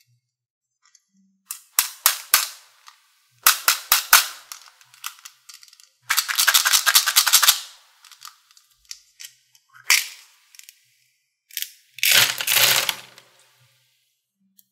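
Sharp plastic clicks and snaps as a small plastic container's snap-on lid is worked open. About six seconds in comes a dense clatter of small hard balls pouring onto a hard plastic tray, and a shorter rattle of balls comes near the end.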